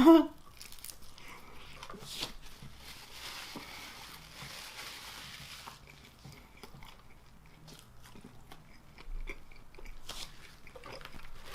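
A person biting and chewing food close to the microphone, with many small crunches and wet mouth clicks.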